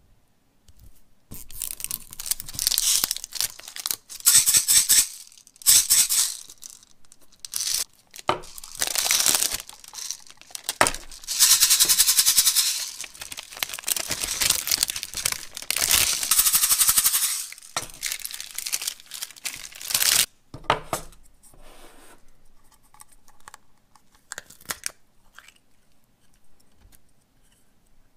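A toy being worked in the hands, giving bursts of crinkling, tearing-like rasps a few seconds long, some with rapid fine clicking in them. The noise fades to faint handling sounds after about twenty seconds.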